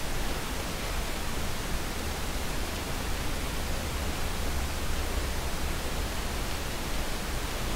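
Steady hiss with a low hum underneath: the background noise of a desk recording, with no distinct events.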